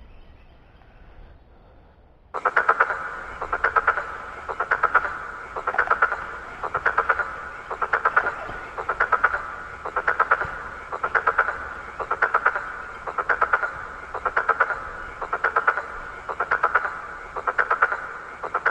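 A frog calling: a loud, rattling croak made of a quick train of pulses, repeated about once a second, starting suddenly about two seconds in.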